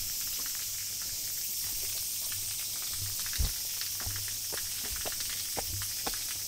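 Footsteps walking, with irregular crisp clicks at a walking pace and a louder low thump about three and a half seconds in, over a steady high-pitched hiss.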